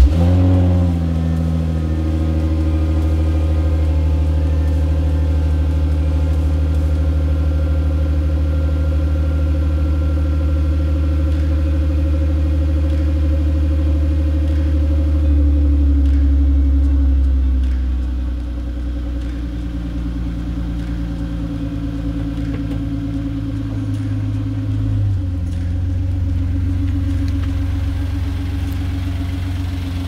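Hyundai Genesis Coupe 3.8 V6 cold-starting: the engine fires right at the start, then runs at a high cold fast idle that steps down lower about halfway through.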